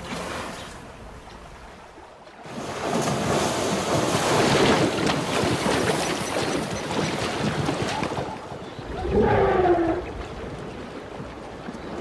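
Zebras splashing as they run through shallow river water, a loud churning that starts about two and a half seconds in. It ends near the nine-second mark with a short pitched animal call.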